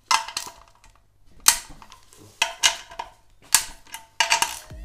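A steel hand tool knocking on a BMW M50 cylinder head during teardown: a series of sharp metallic taps, each with a short ring, about a second apart and coming closer together near the end.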